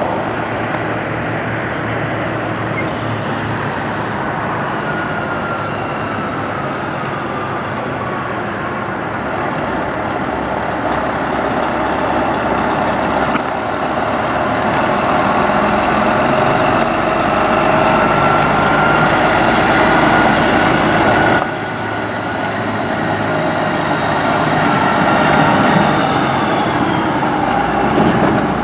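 Freightliner semi-trucks' diesel engines running as the tractor-trailers pull slowly through the lot, with a whine that slowly rises and falls in pitch. About three-quarters of the way in, the sound changes abruptly to a different truck.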